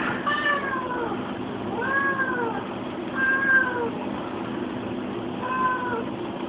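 Domestic cat meowing four times over about six seconds, each meow bending down in pitch at its end.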